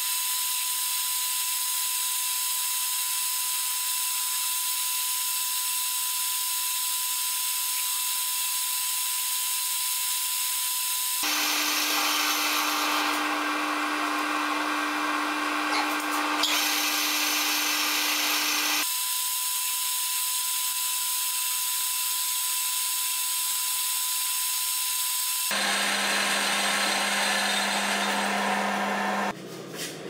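Small metal lathe running with a steady whine over a hiss. The tone drops abruptly about a third of the way in, returns to its higher pitch about two-thirds in, and drops again near the end.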